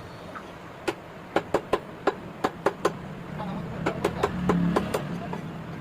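Cleaver chopping chicken on a wooden block: sharp knocks in quick runs of three to six strikes, about fourteen in all. A low hum swells in the background around the middle.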